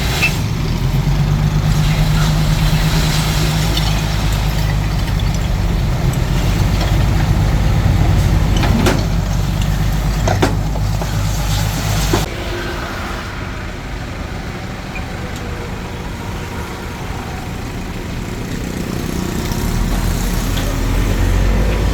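Hitachi DX45M bulldozer's diesel engine running hard under load. It eases off about halfway through and builds up again near the end, with two sharp knocks in the middle.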